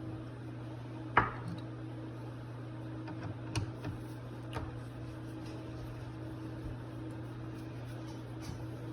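Carburetor parts and hand tools handled during disassembly: one sharp metallic clink about a second in, then a few lighter clicks and taps. A steady low hum runs underneath.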